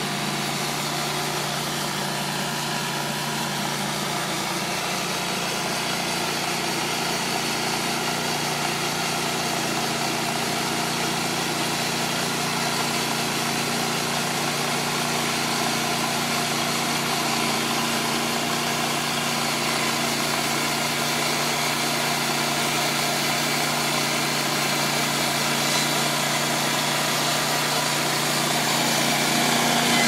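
TimberKing 1600 portable bandsaw sawmill running, its engine holding a steady speed to drive the band blade, and getting a little louder near the end.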